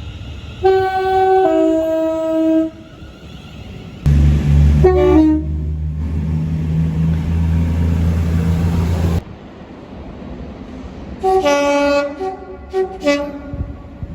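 Train horns: a blast of about two seconds whose chord drops in pitch partway through. Then a heavy low rumble of a train for about five seconds, with a brief horn note over its start. Near the end come several short horn toots.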